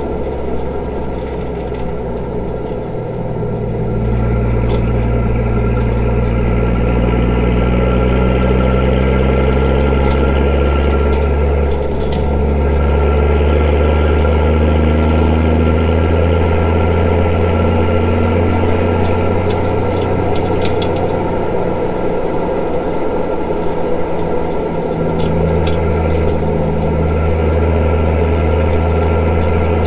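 Straight-piped Nissan TD42 4.2-litre inline-six diesel engine running while the Patrol is driven, heard raw with no muffler. The engine note rises about four seconds in, dips briefly around twelve seconds, and falls away from about twenty-two to twenty-five seconds before coming back up.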